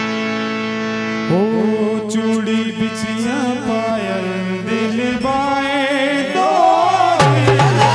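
Harmonium holding a steady chord, then a man singing the slow, wavering opening line of a Malwa folk song over it from about a second in. A dholak comes in with a few sharp strokes near the end.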